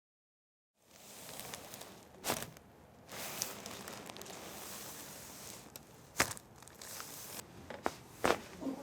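Rustling and crinkling of a body shifting on a chiropractic treatment table, broken by a few sharp cracks about two, six and eight seconds in: joints popping (cavitating) under chiropractic adjustments.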